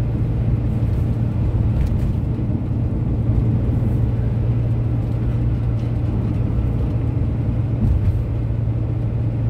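Camper van driving along a road: steady engine drone and tyre rumble, an even low hum with no change in speed.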